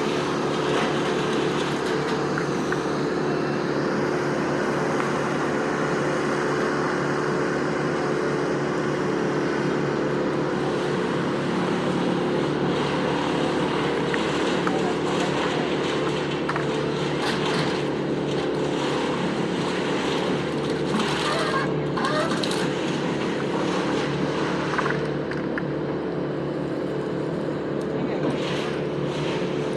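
Heavy equipment engine running steadily at a constant speed, with scattered knocks and clatter for a few seconds past the middle.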